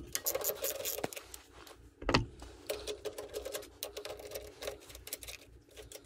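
Socket ratchet clicking in quick runs as the nuts on the snowblower's carburetor studs are backed off, with one louder knock about two seconds in.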